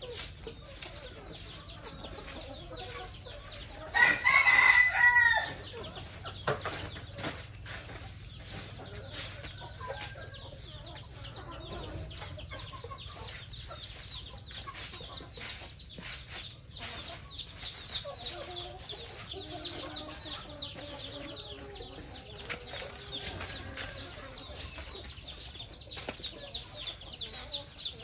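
Chickens clucking throughout, with a rooster crowing loudly once about four seconds in, the crow lasting a little over a second. Many short scratchy clicks run underneath.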